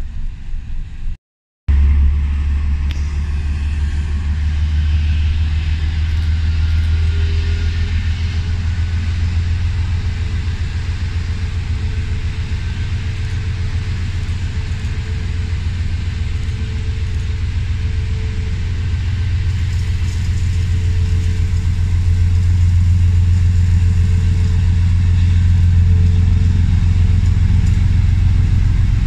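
Railway locomotive running with a steady low rumble that grows slightly louder toward the end, after a brief dropout to silence just over a second in.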